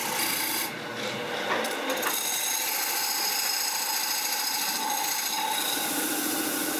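A hand-held chisel cutting into a wooden disc spinning on a belt-driven lathe: a steady scraping of the tool on the wood, with the lathe's drive running under it.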